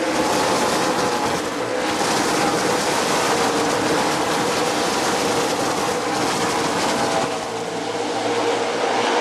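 A pack of NASCAR stock cars racing past at speed, their V8 engines running together in a loud, steady din of many overlapping engine notes. The din eases briefly a little past seven seconds, then comes back up.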